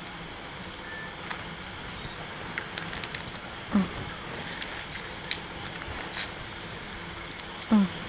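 Crickets chirping steadily in the background. About three seconds in there is a cluster of light clicks and knocks as crab pieces go into a clay mortar holding a wooden pestle and a spoon, and a short voice sound is heard twice.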